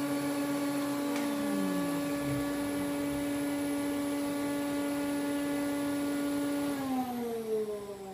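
Multi-speed router running steadily at its lowest speed, about 8,000 rpm, with a fretboard radius bit: a steady hum with several higher tones above it. About seven seconds in the pitch falls away as the router is switched off and winds down.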